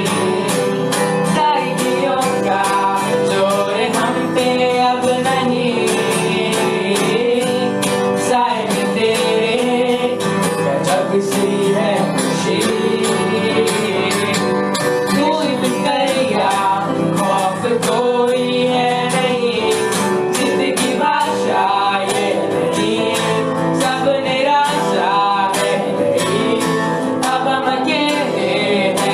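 Live worship band music: steadily strummed guitar under a melody line, mid-song.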